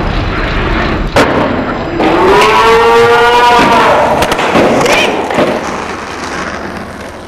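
Skateboard wheels rolling on concrete, with a sharp clack from the board about a second in. From about two seconds in, a person gives a long yell that rises and then falls, over the rolling.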